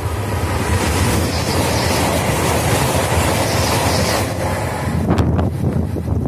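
Italo high-speed electric train passing close at speed: a loud rushing roar of wheels on rails and displaced air that builds in the first second. About four seconds in the high hiss drops away, leaving a rumble and gusts of wind in the train's wake.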